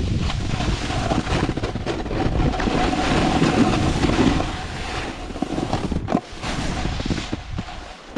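Wind buffeting the microphone of a rider-mounted camera, mixed with a snowboard's base and edges scraping and sliding over chopped-up snow. It is louder through the first half and eases off about halfway through.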